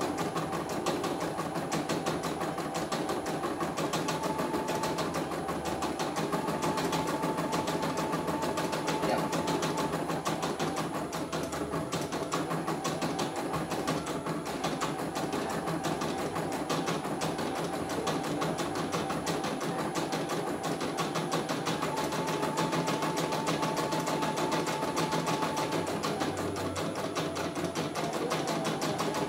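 Computerized home embroidery machine stitching a design: the needle runs in a fast, steady rhythm over a faint motor whine, and the whine begins to rise in pitch near the end.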